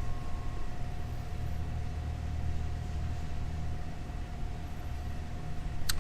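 Steady low mechanical hum with a faint steady whine over it, and a single sharp click near the end.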